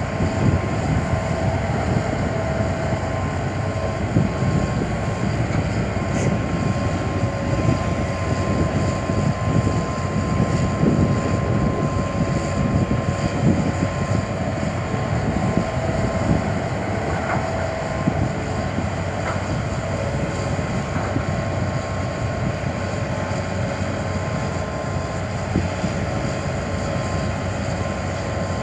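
Hitachi Zaxis 200 excavator's diesel engine running steadily under load while digging, with a steady whine over the low rumble.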